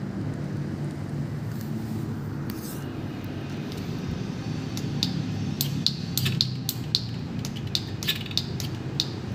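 A string of sharp metallic clicks from a road bike's Shimano Ultegra 12-speed rear drivetrain (cassette, chain and rear derailleur). The clicks start about halfway in, come irregularly about three a second, and sit over a low steady hum.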